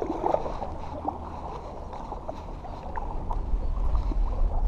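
Kayak paddle strokes: the blade dipping and splashing, with water running and lapping along the hull. A low rumble swells near the end.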